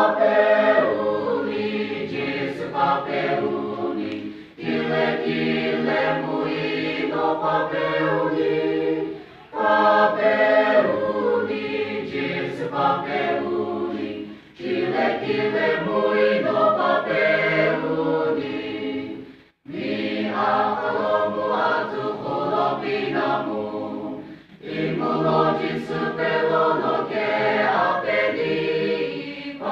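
Mixed choir of women and men singing a hymn, in phrases of about five seconds with brief breaks between them.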